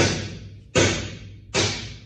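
Three heavy hammer blows on steel, about one every 0.8 s, each a sharp strike that dies away over about half a second.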